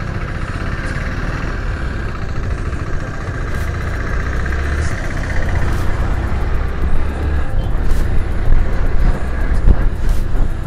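Motorcycle being ridden, heard from the rider's camera: the engine running under heavy low rumble and buffeting on the microphone, with scattered knocks. It gets louder in the second half as the bike picks up along the open road.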